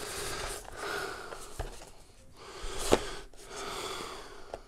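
Cardboard box being turned over and handled, its sides rubbing and scraping against hands and the desk, with a few light clicks and one sharp tap about three seconds in.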